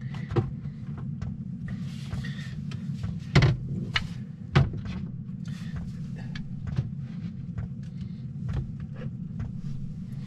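Rummaging in a low cupboard drawer: irregular knocks and clatter of things being moved and lifted out, with two louder knocks a few seconds in. A steady low hum runs underneath.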